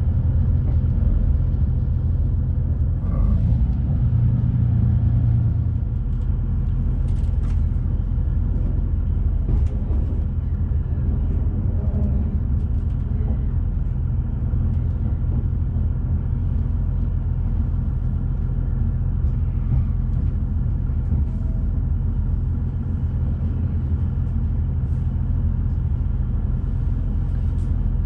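Interior noise of a TransPennine Express Class 185 diesel multiple unit running at low speed as it pulls into a station: a steady low rumble with the diesel engine's hum beneath, and occasional short clicks and knocks.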